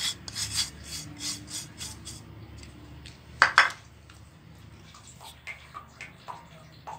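Dry semolina rasping as it is scraped in quick strokes from a glass bowl into an enamel bowl, for about the first second. A brief loud double clatter of dishes comes about three and a half seconds in, and small faint knocks follow.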